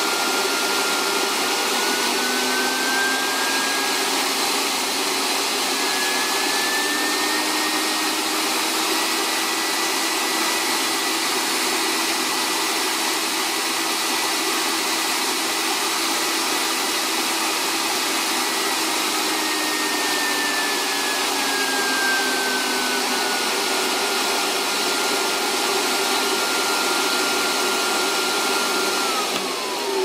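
Miele S224 Electronic vacuum cleaner motor test-running, loosely reassembled in its open housing: a steady whine with rushing air that rises in pitch as the electronic power control is turned up from minimum, holds, then settles back down. Near the end the pitch drops steeply as the motor slows.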